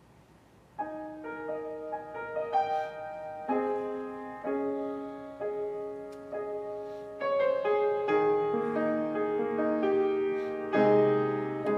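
Solo piano starting about a second in, playing slow, sustained notes and chords that grow fuller and louder in the second half, with lower bass notes added near the end.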